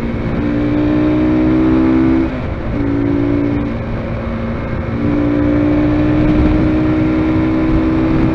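Zongshen RX3's 250 cc single-cylinder engine running hard as the motorcycle accelerates at speed, with wind rushing over the microphone. The engine note eases briefly about two seconds in and again around four seconds in.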